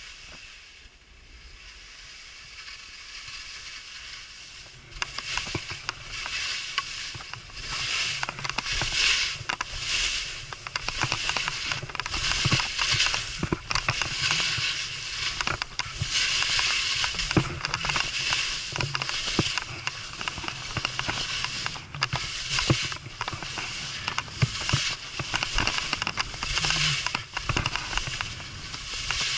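Skis sliding and scraping over snow as the skier turns down the slope, a hissing scrape broken by many sharp clatters, swelling and fading turn by turn. It starts about five seconds in.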